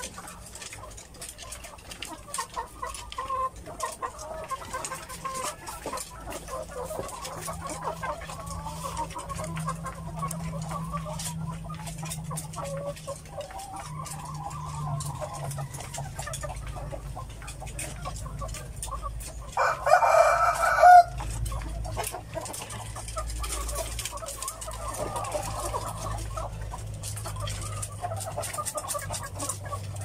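Caged laying hens clucking steadily, with one loud, drawn-out chicken call lasting about a second and a half about two-thirds of the way through.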